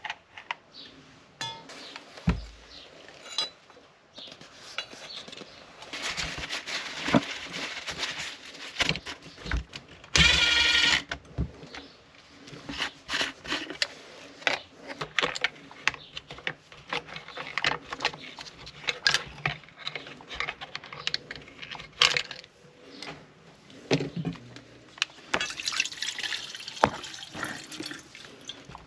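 Tools and chainsaw parts clicking and knocking on a workbench during hand disassembly of a Stihl MS180, with many short irregular knocks. About ten seconds in there is a brief hissing rush, the loudest sound.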